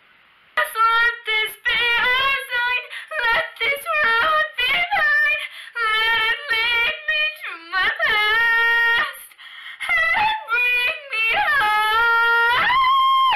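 A girl singing solo with no accompaniment, in short phrases with sliding notes, ending on a long held high note.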